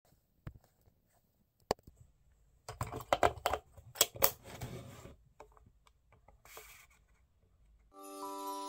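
Two sharp clicks, then a cluster of plastic clicks and rattling as a battery is fitted into the back of a plastic Time Timer desk timer. Bell-laden Christmas-style music comes in just before the end.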